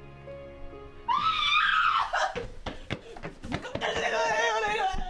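Soft background music with held notes stops about a second in, cut off by a sudden loud, high-pitched scream; more wavering, high screaming follows.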